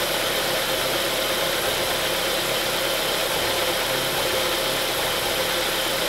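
Ford Duratec HE four-cylinder petrol engine idling steadily under an open bonnet. The engine has a misfire that was traced to a failed HT ignition lead.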